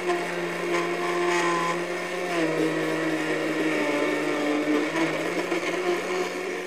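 Electric countertop blender with a glass jar running steadily, chopping vegetables with water into a chutney. The motor's hum drops slightly in pitch about two and a half seconds in, then comes back up about five seconds in.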